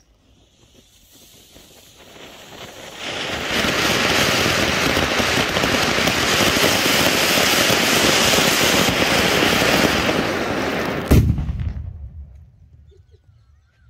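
Anar (flower-pot) firework fountain spraying sparks with a loud, steady hissing rush that builds up over the first few seconds. About eleven seconds in, a sutli bomb goes off with one sharp bang, and the hiss dies away soon after.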